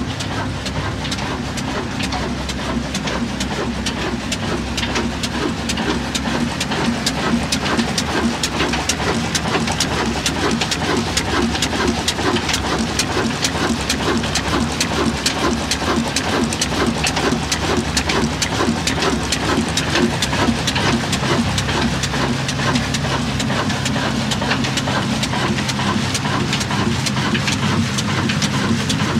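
Old Ruston Hornsby stationary diesel engine with a large flywheel running steadily: a fast, even mechanical clatter over a steady low drone.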